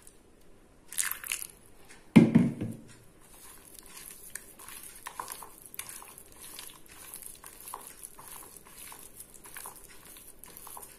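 Water poured briefly from a plastic jug into a bowl, a sharp thump about two seconds in, then a hand squishing and kneading a thick ragi flour and curd marinade in the bowl, with a steady run of soft wet crackles.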